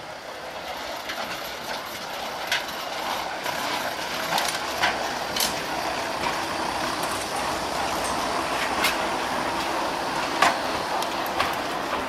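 Gornergrat Railway electric rack railcar running, a steady mechanical running noise that swells over the first few seconds and then holds, with scattered sharp clicks and clanks.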